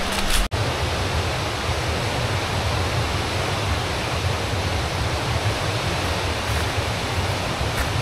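Steady rushing of a stream running beside the trail, an even hiss with a low rumble underneath. It cuts out for an instant about half a second in.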